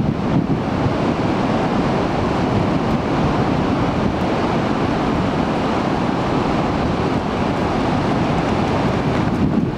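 Ocean surf breaking on the beach, a steady rush of noise, mixed with wind blowing on the microphone.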